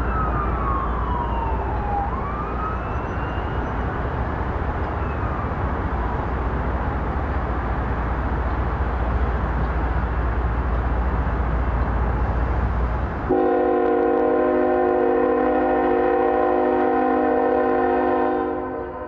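A siren wails over a steady low rumble in the opening seconds. About 13 seconds in, a freight locomotive's multi-chime air horn starts suddenly and sounds one long steady blast that fades near the end.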